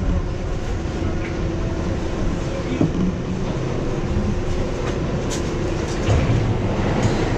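R62A subway train running along the track: a steady rumble of wheels and motors with a few sharp clicks.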